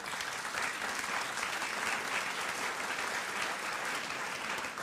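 Audience applauding steadily, a dense even clapping that begins abruptly and starts to die away near the end.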